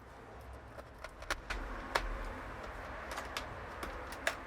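Scattered light clicks and taps of small tools and parts being handled on a DJ controller during reassembly, about seven separate ticks over a faint hiss.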